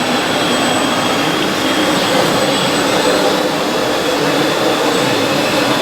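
Radio-controlled scale model construction machinery running: electric drive motors and gearing giving a steady whine over a noisy hiss.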